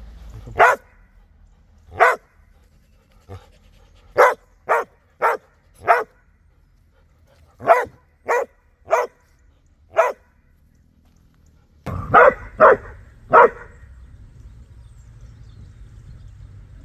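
A setter barking: about fourteen short single barks, spaced out at first, then in runs of three or four at about two a second.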